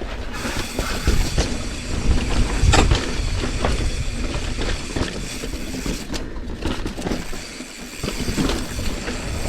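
Mountain bike descending a dirt trail at speed: wind rumbling on the bike-mounted microphone, with tyres on dirt and the bike's parts rattling over bumps.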